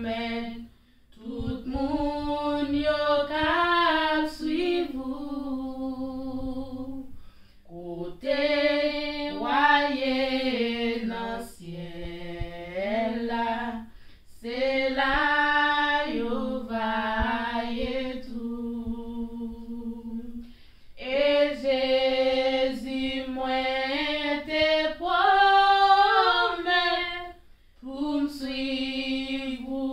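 Two women singing a worship song a cappella, in sung phrases of a few seconds with short breaks for breath between them.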